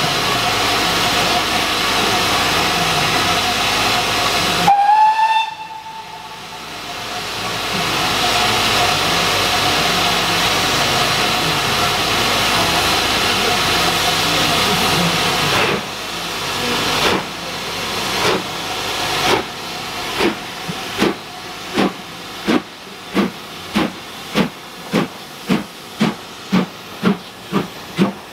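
BR Standard Class 5 4-6-0 steam locomotive No. 73156: steam hissing, then one short whistle blast about five seconds in. After about sixteen seconds it starts away, its exhaust chuffs beginning slowly and quickening to about two a second.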